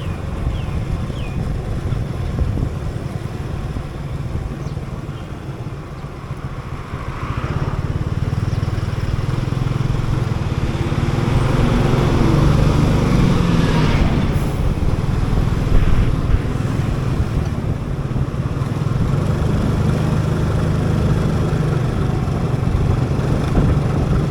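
Motorcycle engine running under way in traffic, heard from the bike, with road noise. It eases off a few seconds in, then picks up again and runs louder from about eight seconds on.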